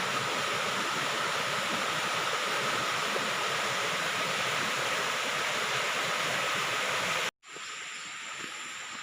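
Rushing water running steadily, a dense even hiss. About seven seconds in it cuts off abruptly and gives way to a quieter steady insect drone with a thin high whine.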